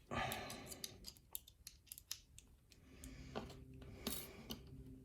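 Small metal tool prying and bending a lock cylinder's retaining clip off, giving a scrape at first and then a run of sharp little metallic clicks.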